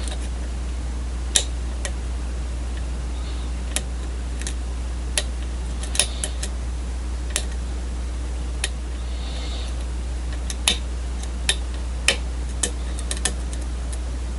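Pins of a pin-tumbler challenge lock snapping and popping under a lock pick and tension: sharp clicks at irregular intervals, some in quick clusters, over a steady low hum.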